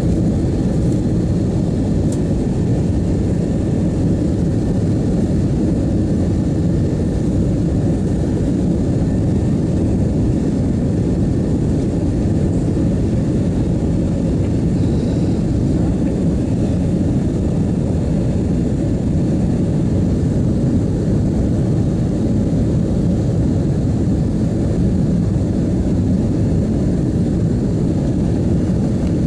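Airbus A330-200 cabin noise in flight, heard from a window seat: a steady low rumble of jet engines and rushing air, unchanging throughout.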